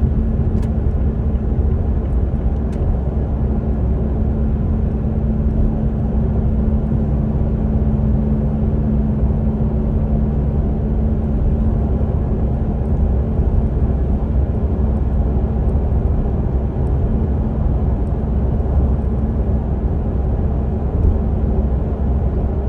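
Mazda CX-3 running on the road: a steady low rumble with a steady hum through it, after a repair meant to cure the car's droning 'boon' noise. A second, lower hum fades about halfway through.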